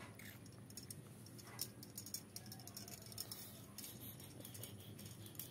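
Faint handling noise: small scattered clicks and rustles of elastic hair bands being handled, over a low steady hum.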